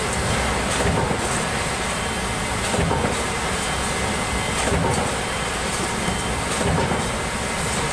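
Steady heavy press-shop machine noise from a 315-ton mechanical press, with a heavier surge about every two seconds as it strokes.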